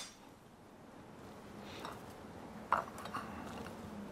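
Quiet kitchen room tone with a faint steady hum and a few soft, light taps, about two and three seconds in, from strawberries being set onto a plate of French toast.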